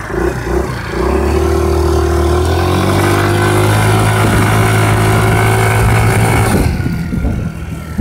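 Scooter engine with a 100cc big-bore kit, pulsing at idle, then revved up in two steps about a second and three seconds in, held at a steady high speed, and let back down near the end.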